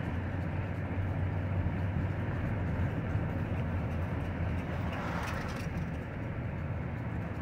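Steady low rumble of a vehicle driving slowly: engine and road noise, swelling slightly about five seconds in.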